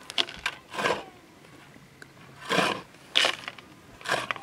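Soil being dug or turned over with a hand tool: about half a dozen short scraping strokes into loose earth, irregularly spaced.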